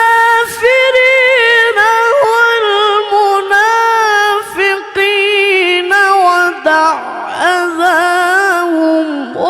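Melodic Quran recitation (tilawah): a single high-pitched voice chanting a long ornamented phrase with held, wavering notes and melismatic turns, pausing briefly for breath.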